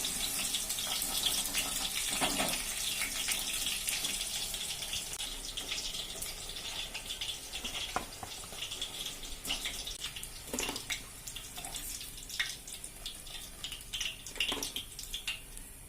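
Chicken pieces sizzling in hot oil in a kadai. The sizzle slowly dies down as the fried pieces are lifted out, with scattered clinks of the straining spoon against the pan.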